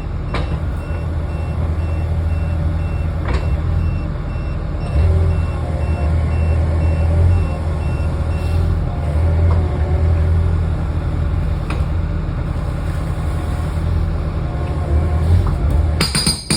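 Mini excavator diesel engine running steadily under hydraulic work, with a repeating high warning beep for about the first nine seconds. A loud harsh noise comes near the end.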